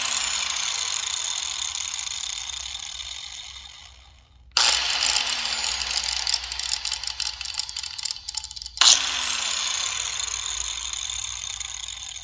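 Bauer corded right-angle grinder running with no load. It coasts down with a falling whine, is switched on again about four and a half seconds in and again about nine seconds in, and each time spins down afterward. This is a bearing-noise check; the owner hears a little growl in the bearings of the used grinder, which has about 100 hours on it, but still calls it pretty quiet overall.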